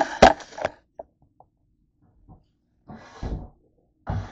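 Handling noise as the camera is moved about and set down on a kitchen counter: rubbing and clicks for the first moment, then two soft bumps about three and four seconds in.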